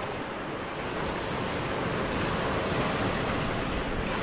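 Sea waves sound effect: a steady rushing wash of surf that slowly grows louder.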